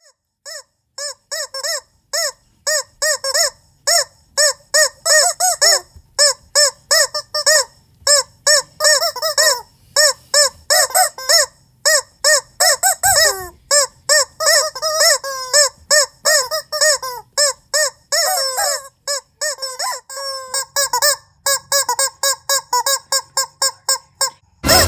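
Rubber chicken toys squeaking in a fast run of short squeaks, several a second, rising and falling in pitch. A loud thump comes just before the end.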